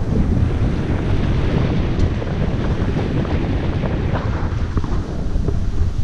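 Wind buffeting a helmet-mounted GoPro Hero5 Black's microphone while riding a mountain bike: a loud, steady low rumble, with scattered short ticks and rattles from the bike running over the trail.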